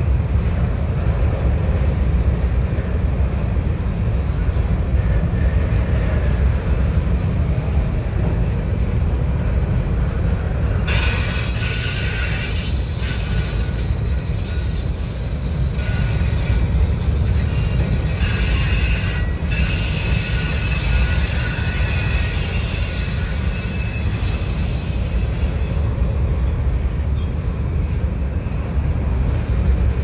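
Covered hopper cars of a freight train rolling past close by, with a steady low rumble of wheels on rail. From about a third of the way in, steel wheels squeal in high, shrill tones, stopping a few seconds before the end.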